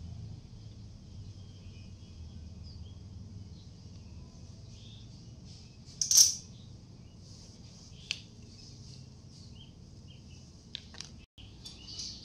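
Small metal nail clippers snapping shut on a monkey's fingernails: one sharp click about six seconds in, a lighter click about two seconds later, and a few faint clicks near the end.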